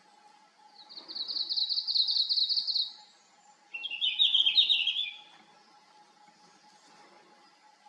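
Male red-flanked bluetail singing two short song phrases: the first a fast, even trill of rapid high notes about a second in, the second a lower, jumbled warble just before the middle.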